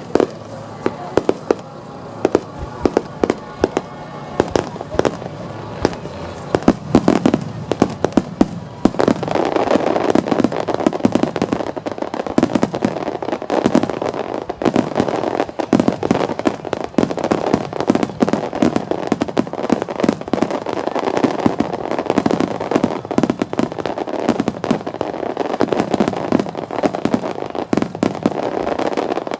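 Starmine fireworks display: aerial shells launching and bursting in a string of sharp bangs, which about nine seconds in becomes a dense, continuous barrage of reports and crackle.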